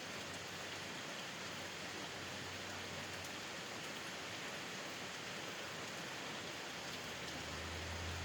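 Steady rain falling. A low hum swells in near the end.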